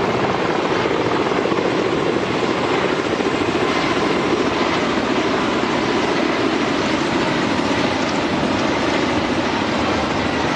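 Firefighting helicopters flying, a steady, loud drone of rotor and turbine engines with a fast rotor chop.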